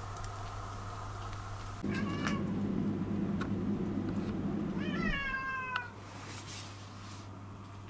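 A domestic cat meowing twice: a short call about two seconds in, then a longer one that rises and falls in pitch about five seconds in.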